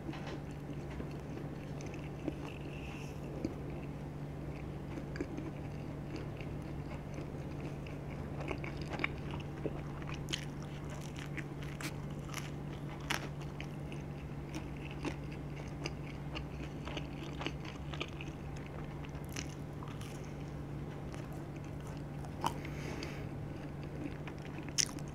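Close-up chewing and biting of tandoori chicken pizza with a charcoal-dough crust: scattered small crunches and wet mouth clicks over a steady low hum.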